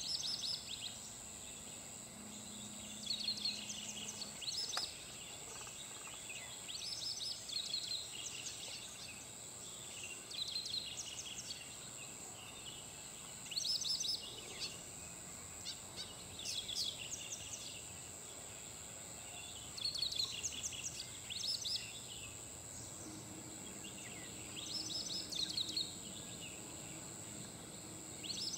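White-browed wagtail (large pied wagtail, Motacilla maderaspatensis) singing: short phrases of high, quick chirping notes, repeated about every three to four seconds. Under them runs a steady high-pitched drone.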